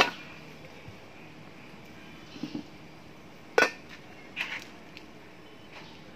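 Aluminium steamer pot set down on a stone table with a metallic clank, then its lid lifted off and set down with a louder clank about three and a half seconds in, with lighter knocks of handling in between.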